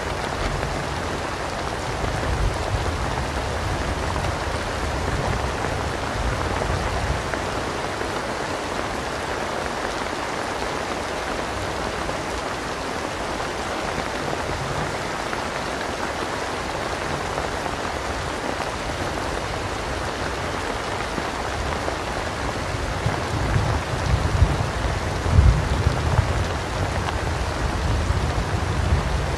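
Steady heavy rain falling in a rainstorm, with low rolling thunder rumbling near the start and swelling again over the last several seconds.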